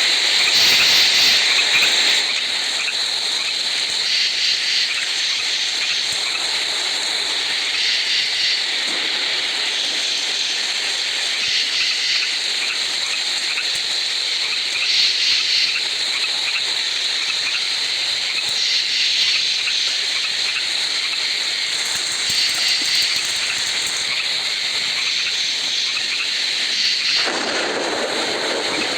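Recorded relaxation ambience from a sleep-sound app: a steady, high hiss like white noise or rain, swelling gently every three to four seconds. A fuller, lower rush joins it near the end.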